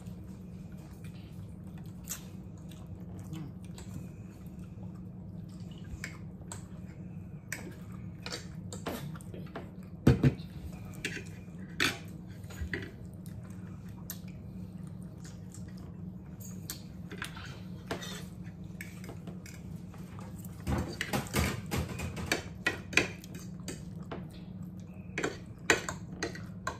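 Metal forks clinking and scraping against dinner plates in scattered sharp clicks, with a louder clatter about ten seconds in and a quick run of clinks a little past twenty seconds, over a steady low hum.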